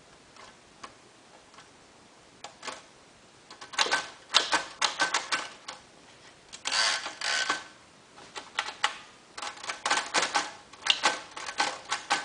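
Keys of a 1928 Royal Model P portable typewriter striking the platen. A few scattered clicks come first, then rapid bursts of typing from about three and a half seconds in.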